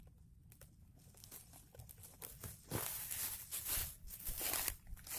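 Rustling and crinkling of leaves and stems close to the microphone, starting a little under three seconds in as a series of short irregular bursts, as a hand holding a fishing rod moves through the bankside plants.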